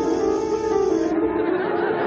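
Instrumental dance music playing, a melody of long held notes.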